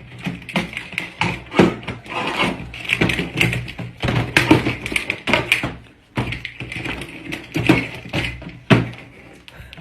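A rapid, irregular run of light taps and knocks, some sharper and louder than others, with a low steady hum underneath.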